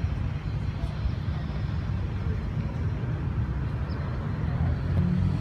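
Steady low outdoor rumble with no distinct event.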